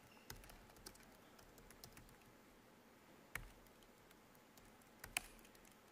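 Faint typing on a computer keyboard: scattered key clicks, with two sharper keystrokes about three and a half and five seconds in.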